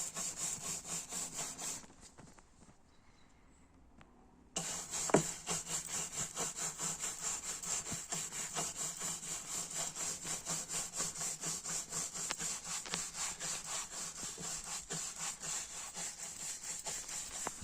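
Wax polish being rubbed by hand into a wooden sofa frame with a pad, in quick back-and-forth scrubbing strokes about three a second. The strokes stop for a couple of seconds about two seconds in, then resume with a knock and carry on steadily.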